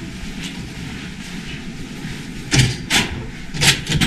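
Steady low room noise with soft footsteps, then from a little past halfway a handful of sharp clacks and thuds as a door's metal push bar is pressed and the door swung open.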